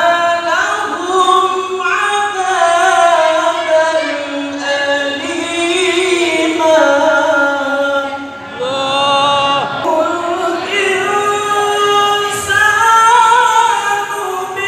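A male qari reciting the Qur'an in a high voice in the melodic mujawwad style, amplified through a microphone, holding long ornamented notes that bend up and down in pitch. He breaks off briefly for breath a little past the middle.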